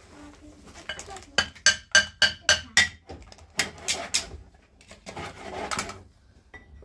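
Hammer driving a nail into wood: about seven quick, ringing blows in a row, lasting about a second and a half, followed by softer, noisier handling sounds.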